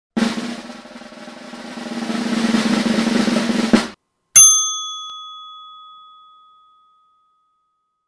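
Intro sting: a snare drum roll that swells over about four seconds and ends on a hit, then a single bright ringing strike that fades away over a couple of seconds.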